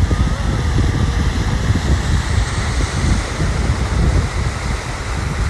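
Ocean surf washing on a beach, mixed with heavy wind buffeting the microphone in a steady low rumble.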